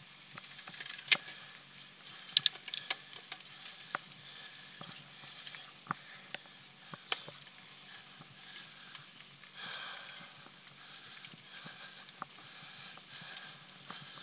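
Mountain bike ridden over a dirt trail: the bike rattles and clicks irregularly over bumps, with a short scraping rustle about ten seconds in.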